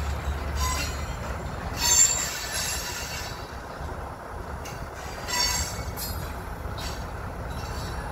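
Steel wheels of freight tank cars squealing against the rails as the train rolls away: several short, sharp, high-pitched squeals, the loudest about two seconds in and another about five and a half seconds in, over a low rumble that fades about a second in.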